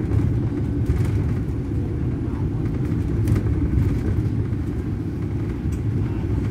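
Bus in motion, heard from inside: a steady low rumble of engine and road noise.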